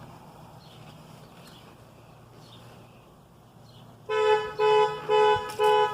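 Electronic beeping tone starting about two-thirds of the way in, pulsing steadily about twice a second.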